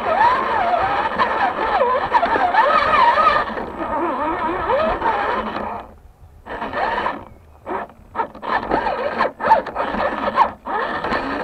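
RC rock crawler's electric motor and gearbox whining, the pitch rising and falling with the throttle as it climbs wooden steps. The whine cuts out briefly twice past the middle, then comes back in short spurts with a few sharp knocks near the end.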